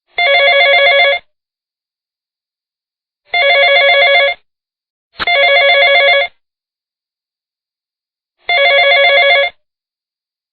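Phone ringtone playing a trilling telephone-bell ring: four loud bursts of about a second each, each one fluttering rapidly, with the third following the second almost at once.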